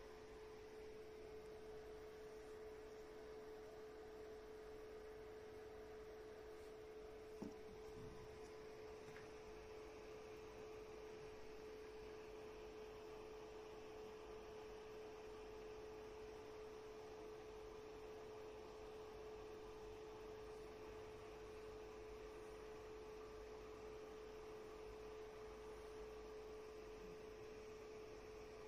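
Near silence with a faint, steady single-pitched tone, and one soft knock about seven seconds in.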